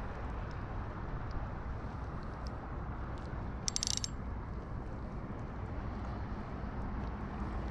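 Steady low rumble of wind on the microphone over open water, with faint scattered ticks and one short, bright rasping burst about three and a half seconds in.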